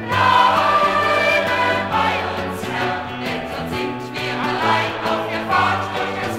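Choir singing a German church song with band accompaniment.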